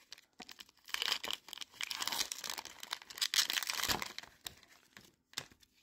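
Foil Pokémon booster pack wrapper being torn open and crinkled by hand, a dense crackling that starts about half a second in and dies away after about four and a half seconds, followed by one small tap.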